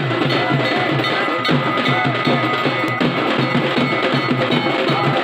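Fast, steady drumming with bells ringing over it: the percussion accompaniment of a Hindu aarti.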